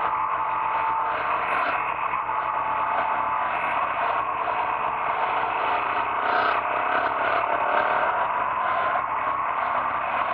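Large adventure-touring motorcycle riding along at speed, heard from a camera mounted on the bike: a steady rush of wind and road noise over an engine note that drifts slowly up and down in pitch.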